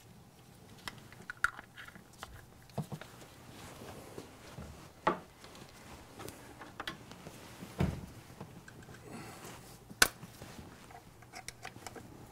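Scattered clicks and knocks of small metal throttle-linkage parts being handled and worked by hand, as the greased ball sockets are fitted and snapped back onto their ball joints. The sharpest click comes about ten seconds in.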